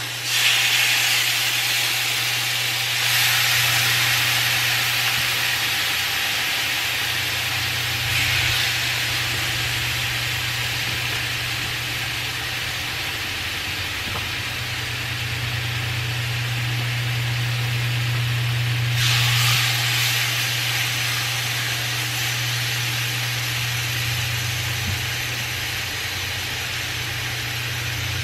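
Marinated chicken breasts sizzling in a hot nonstick frying pan, the sizzle flaring up four times as more pieces are laid in. A steady low hum runs underneath.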